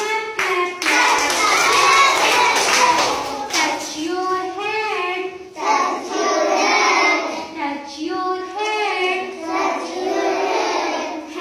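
A class of young children chanting a body-parts action rhyme in unison with their teacher, call-and-response style, with hand claps keeping time over the first few seconds.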